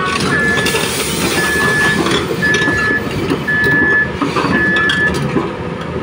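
A construction machine's warning alarm beeping: one high steady beep about every second, five in all, stopping about five seconds in. It sounds over the running engines of a crawler excavator and dump truck, with a few metallic clinks.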